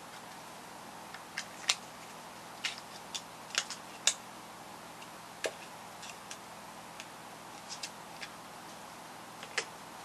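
Scattered light clicks and taps from small makeup items and their plastic packaging being handled, a dozen or so at uneven intervals, with a couple of sharper ones in the first half, over a steady hiss.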